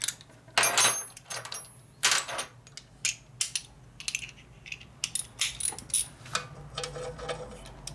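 Metal hand tools and sockets clinking and clattering as they are handled, with irregular sharp metallic clinks, some ringing briefly.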